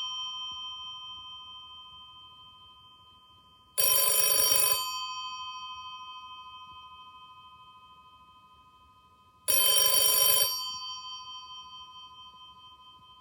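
W48 rotary telephone's electromechanical bell ringing: two rings of about a second each, roughly six seconds apart, the bell humming on after each ring and slowly fading away.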